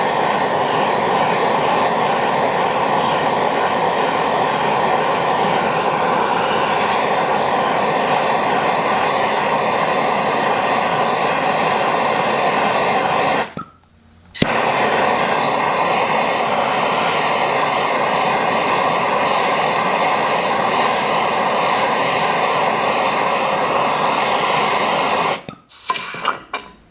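Handheld gas torch burning with a loud, steady hiss as it heats a Coleman lantern generator to burn out the swollen cardboard filter inside. The flame cuts out about halfway through, relights abruptly within a second, and shuts off near the end.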